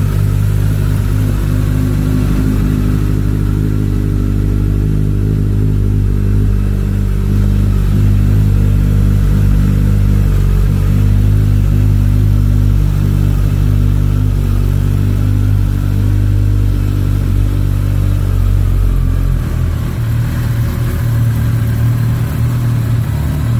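Kawasaki ZZR1400's inline-four engine idling steadily through an Akrapovic silencer, with no revs; the tone changes slightly near the end.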